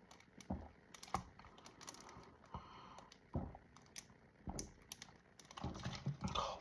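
Faint, irregular clicks and soft thumps, about one or two a second, of someone drinking soda from a 2-liter plastic bottle, with a denser run of sounds near the end.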